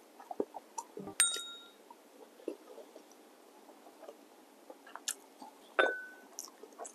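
Ceramic tableware clinking: two ringing clinks from the white porcelain bowl and plates, one about a second in and a second one near six seconds. Faint clicks and eating noises fall in between.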